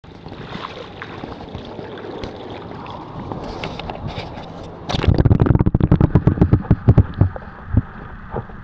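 Water sloshing and gurgling around a waterproof camera held under the surface of shallow water. About five seconds in comes a rapid flurry of loud knocks and splashes for two or three seconds as the camera is moved, then it settles back to a softer wash.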